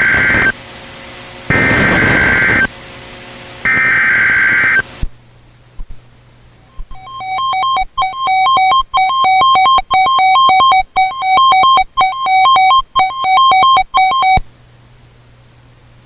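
NOAA Weather Radio alert opening: three short bursts of buzzing SAME digital header data about a second apart, then the weather radio's steady warning alarm tone for about seven seconds. The tone stutters with many brief dropouts.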